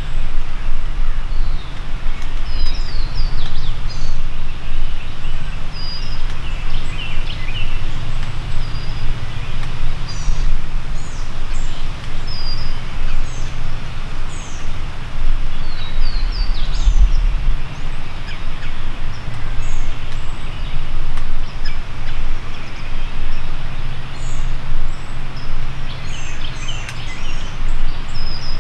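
Wind buffeting the microphone with a steady rumble and rushing noise, while small songbirds chirp in short, quick notes in the background.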